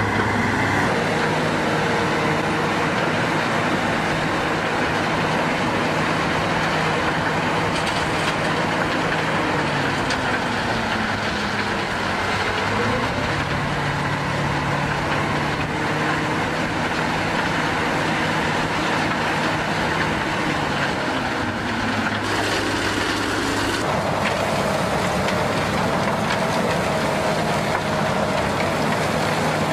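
Heavy construction machinery running, its engines holding a steady drone that slides up and down in pitch now and then as the machines work. The sound changes abruptly about 22 and 24 seconds in.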